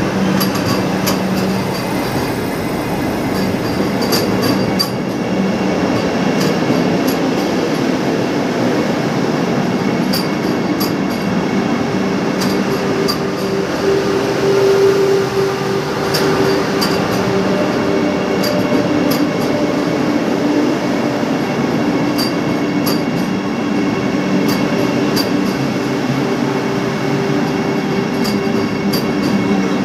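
Vande Bharat Express electric multiple unit creeping past at walking pace: a steady rolling rumble with a low hum and a higher steady tone, and light clicks recurring throughout.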